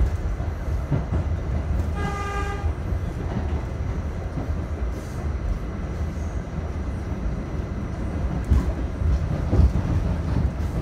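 R68A subway car running on the rails, heard from inside the car: a steady low rumble with knocks from the wheels over rail joints, more frequent and louder from about eight seconds on. A short steady tone sounds once about two seconds in.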